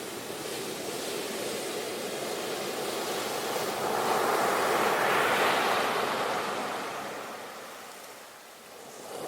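Sea waves washing on the shore. One wave swells to a peak about halfway through and then recedes, and the next starts building near the end.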